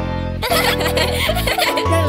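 Children's cartoon background music with a steady bass line.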